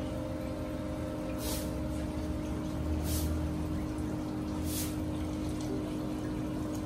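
Aquarium filtration running: a submersible pump's steady hum under the continuous sound of water trickling and bubbling, with a brief hiss of water about every second and a half.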